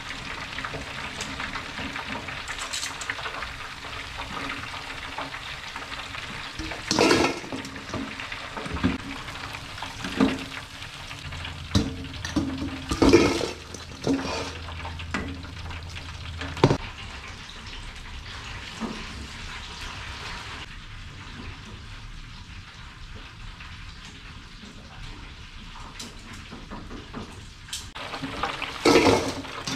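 Lumpia deep-frying in the oil of a stainless electric deep fryer, a steady sizzle, with metal clanks of tongs, a wire fryer basket and a steel bowl every few seconds and a loud clatter near the end.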